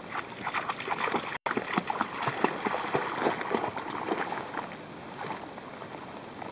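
A dog's legs splashing through the water as it wades out from the shore and starts to swim: a quick, irregular run of splashes that eases into quieter paddling after about four seconds.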